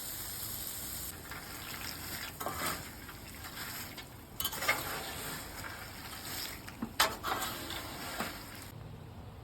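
Nuts and bolts snack mix being stirred and scraped across a Blackstone flat-top griddle, with a few clattering strokes, over a steady sizzle from freshly poured butter. The sizzle drops away near the end.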